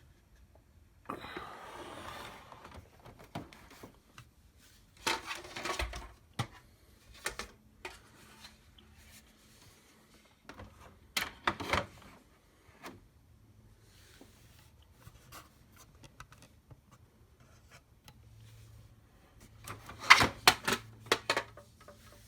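Handling noises: scattered rubbing, scraping and clicks in a few short bursts, with the loudest cluster near the end.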